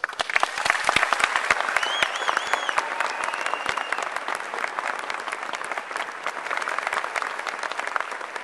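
Large audience applauding, with many hands clapping close by, starting suddenly and easing a little toward the end. Someone in the crowd whistles about two to four seconds in.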